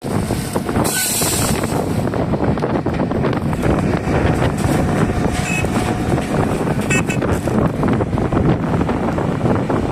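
Excavator engine running steadily, with wind rumbling on the microphone.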